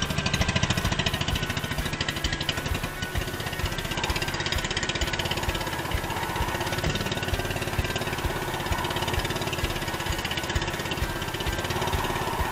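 A motorised outrigger boat's engine running steadily under way, with a rapid, even beat.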